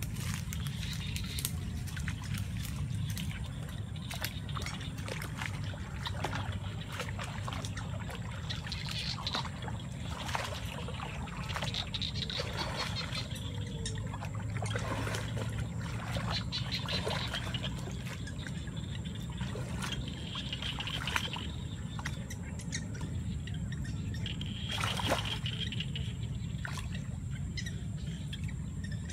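Water sloshing and splashing as someone wades knee-deep through flooded brush, with short swishes and clicks, over a steady low rumble.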